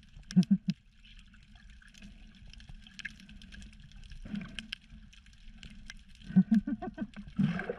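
Water noise heard underwater: a faint hiss with scattered small clicks. Short bursts of a muffled voice come about half a second in, briefly around the middle, and several times near the end.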